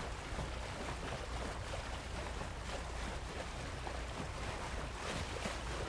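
Steady wash of sea water with wind, an even rushing sound over a low rumble.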